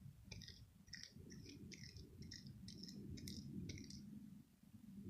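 Faint, irregular sticky clicks and crackles, about a dozen over four seconds, from hands working wet glue slime, over a low handling rumble.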